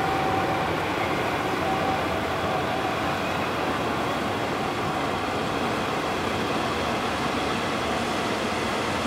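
Steady drone of ship engines running at the harbour, with a faint thin whine that fades out about two seconds in.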